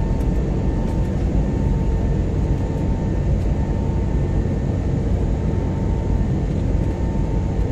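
Steady engine and airflow noise inside a passenger plane's cabin shortly after takeoff, with a thin, steady high whine above it.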